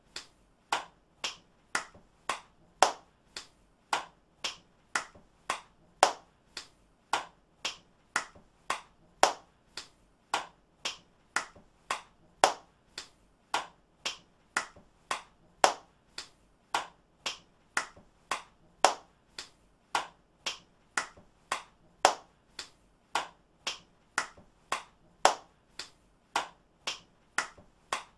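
One person's hand claps repeated in a steady loop, about two claps a second, some louder than others.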